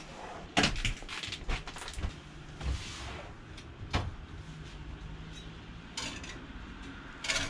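Clicks and knocks of a metal baking tray and an oven door being handled, as the tray is carried over and slid into a small built-in oven, with a louder clatter near the end.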